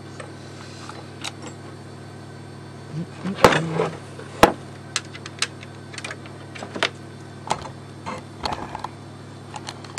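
Hands handling plastic headlight parts and small metal tools on a workbench: scattered small clicks and knocks, with a louder clatter about three and a half seconds in and a sharp click just after. A steady low hum runs underneath.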